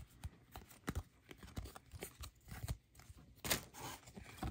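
Trading card packs and cards being handled: scattered light clicks and rustles of cardboard, with a louder crinkle of a pack wrapper being torn about three and a half seconds in.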